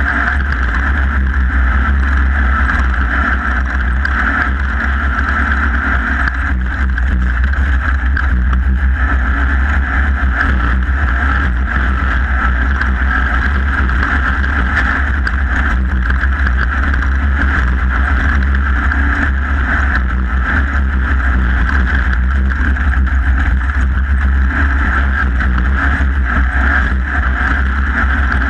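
Off-road race vehicle's engine running steadily under load through a desert race lap, heard from an onboard camera as a loud, unbroken drone with a deep rumble.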